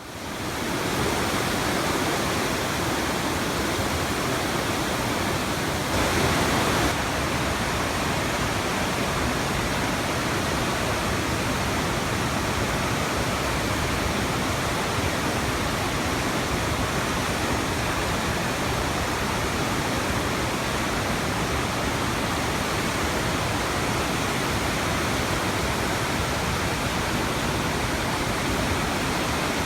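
The Mukawa river rushing through a rocky gorge, swollen after a typhoon: a loud, steady wash of flowing water, a little louder for a moment about six seconds in.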